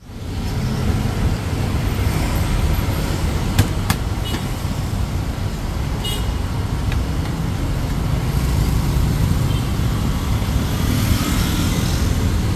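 Street traffic noise: a steady rumble of passing vehicles, with a few short sharp clicks about three and a half to four seconds in and again about six seconds in.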